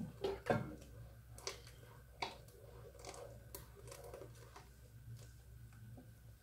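A spatula stirring and scraping in a pan of hot milk as an egg-and-flour custard mixture is poured in, with a few sharp clicks and taps of utensil and bowl against the pan, the loudest about half a second in. A faint steady hum lies underneath.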